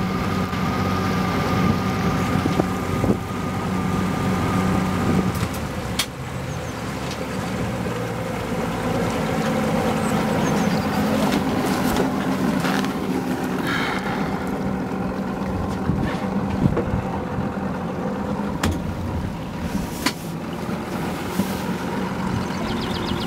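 Small motorboat engine running steadily, with wind and water noise; the engine note changes about five seconds in, and a few sharp knocks come through.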